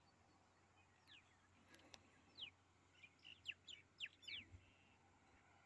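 Faint bird chirps: short notes that fall quickly in pitch, scattered and coming thickest about three to four seconds in, over an otherwise near-silent background.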